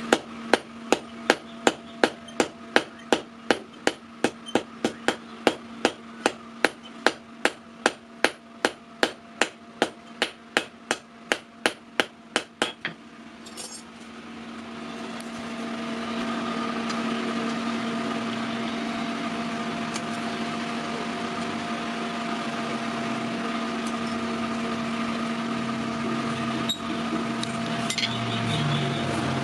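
Blacksmith's hand hammer striking steel on an anvil in a steady rhythm, about two and a half blows a second, while forging a sickle blade. About thirteen seconds in the hammering stops, and a steady machine whirr with a low hum and hiss takes over.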